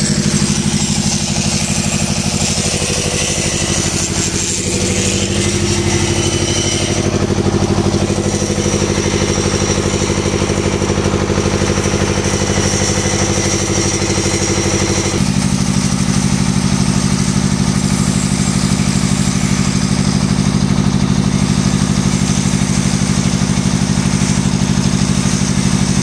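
A steady engine drone mixed with an electric flexible-shaft grinder running, grinding inside an excavator's steel pin bore. About fifteen seconds in, the pitch pattern of the drone shifts abruptly and then holds steady.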